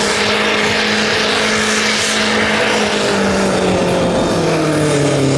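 Compact diesel pulling tractor running flat out under load as it drags a weight-transfer sled. The engine note holds steady at first, then its pitch falls in the last couple of seconds as the revs drop.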